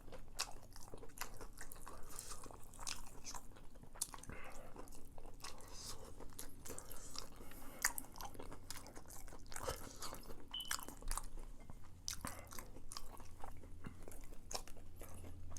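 A person chewing crispy fried chicken tenders, with many short crunches of the breading between bites.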